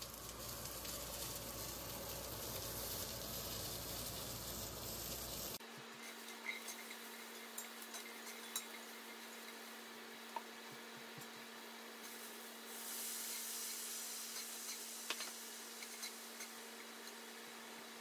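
Onions, carrots and celery sizzling in a cast iron skillet, with a spatula stirring and scraping against the pan now and then. The sizzle turns abruptly quieter about five and a half seconds in.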